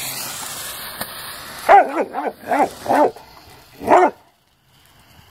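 A lit Black Cat smoke ball hissing and sparking, the hiss fading out about two seconds in; then a dog barks five times, four in quick succession and one more a second later.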